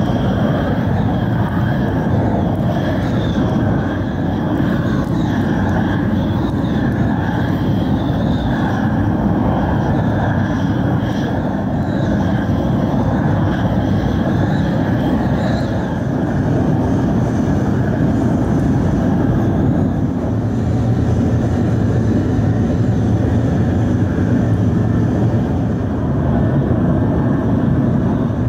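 Steady, loud roar of foundry machinery running, with a wavering higher whine that fades out about halfway through and a low hum that grows stronger a little later.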